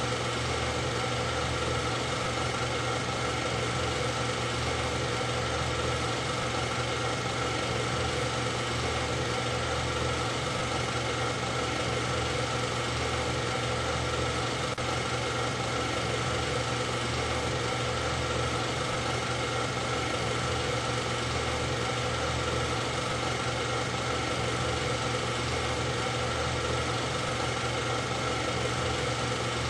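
A steady motor drone at one constant pitch, with no revving, rise or fall and no breaks.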